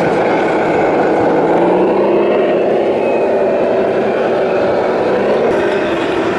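Simulated diesel truck engine sound from a radio-controlled model truck's sound module, rising a little in pitch about two seconds in and easing back near the end.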